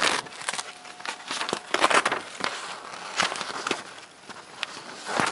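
Sheets of loose-leaf paper rustling and crinkling as a cat paws at them, in uneven bursts, the loudest around two seconds in and again just before the end.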